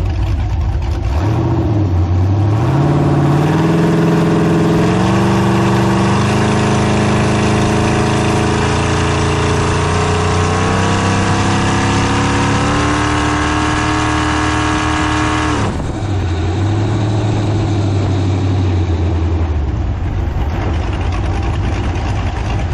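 Jet boat's 383 V8 engine running hard, its pitch climbing in steps as the revs build, then dropping suddenly about two-thirds of the way through to a lower steady run.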